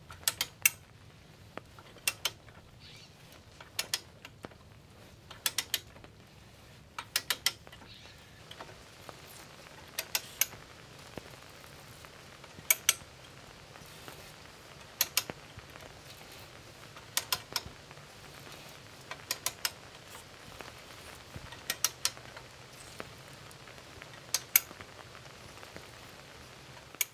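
Manual ratchet pipe threader cutting threads on a pipe: the handle's ratchet clicks in short clusters of two to four sharp clicks about every two seconds as the handle is worked back and forth.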